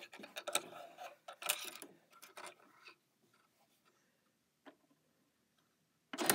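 Small clicks and scratchy rubbing as hands fit a snap-on presser foot onto a Janome Skyline S7 sewing machine. It is mostly quiet after about three seconds, then a loud brushing rustle comes near the end.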